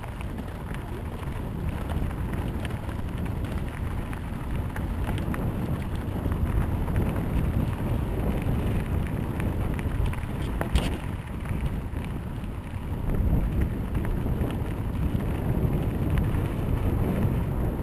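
Wind rushing over the camera's microphone while riding a mountain bike on a dirt track, with tyre rumble and frequent small rattles and knocks from the bike. A sharper knock comes about eleven seconds in.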